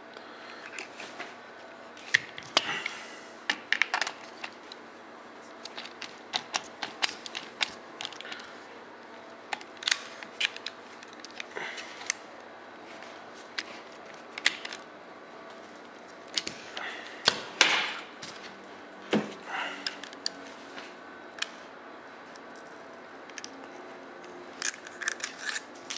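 Hand tools and a synthetic rifle stock being handled on a work surface: irregular clicks, taps and light knocks, with quieter gaps between clusters of them.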